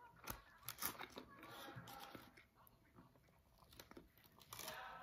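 A person chewing and biting into a fast-food burger close to the microphone, with a few sharp crunchy clicks in the first second.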